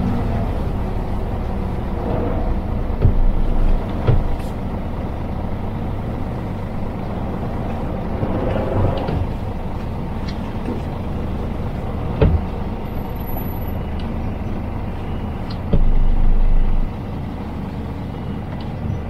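Scania truck running, heard from inside the cab: a steady low rumble with scattered clicks and knocks, and two short, louder rumbles about three seconds in and again about sixteen seconds in.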